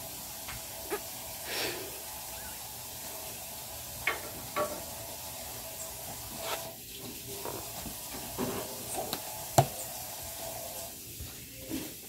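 Small rubber party balloons being handled and one blown up by mouth: brief puffs of breath and a few light clicks and rubber rubs over a steady low hiss. The sharpest click comes about two-thirds of the way through.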